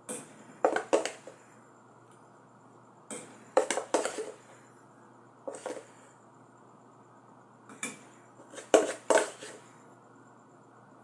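Kitchenware being handled: pots, dishes and utensils clinking and knocking together in four short bursts of clatter, the loudest near the end.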